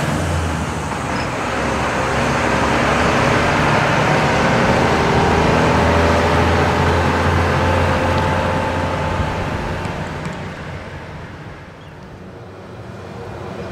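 Road traffic: a heavy vehicle's engine running steadily with road noise, fading away about ten seconds in before traffic noise picks up again near the end.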